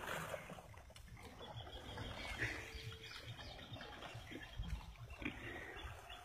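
Faint outdoor ambience: wind rumbling on the microphone, with a few faint bird calls.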